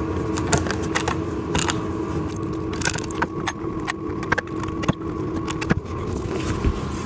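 Scattered light clicks, taps and clinks of wooden flat-pack panels and small metal cam-bolt hardware being handled and fitted together, over a steady background hum.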